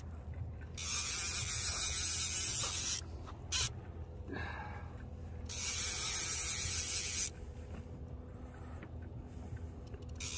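Fishing reel drag buzzing as a hooked fish pulls line off against it, in two bursts of about two seconds each, with a third starting at the very end.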